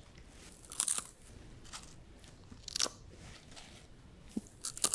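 Potato chips crunching: a few short, sharp crunches about a second apart, with a quick cluster near the end. The crunches are mostly high-pitched, the bright sound that marks a crisp chip.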